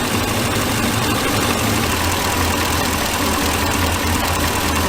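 2006 Ford E350's 5.4-litre two-valve V8 idling steadily with a misfire on cylinder 4, the misfire having followed the ignition coil swapped over from cylinder 8: the sign of a bad coil.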